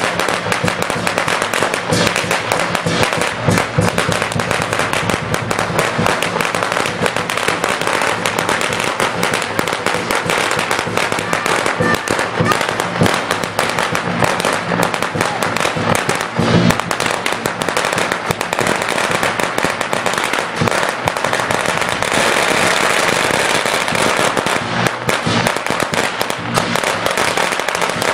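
Strings of firecrackers going off in a loud, continuous rapid crackle of pops.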